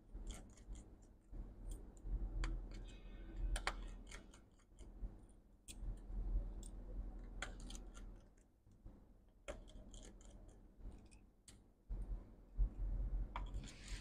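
Irregular small clicks and taps of tiny screws and metal brackets being handled and lifted out of an opened MacBook Pro, over a low rumble of hands moving.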